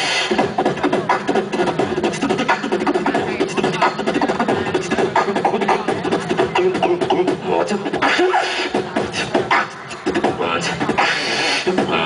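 A beatboxer performing into a handheld microphone, amplified through a stage PA: a dense, rhythmic run of vocal kick, snare and hi-hat sounds mixed with hummed bass tones.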